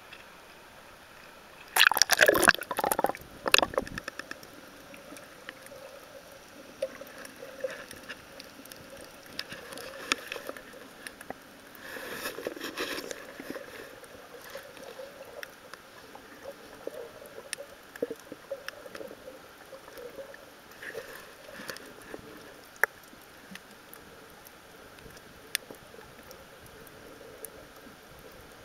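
A camera dipping below the sea surface with a loud splash and sloshing about two seconds in, followed by muffled underwater sound: water moving against the camera, with scattered faint clicks and a few brief swells of noise.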